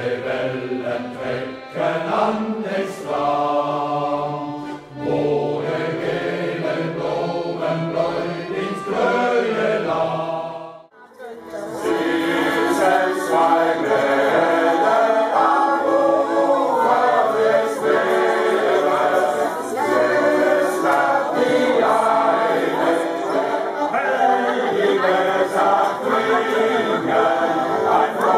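Shanty choir singing a sea song. The singing breaks off for a moment about eleven seconds in, then starts again.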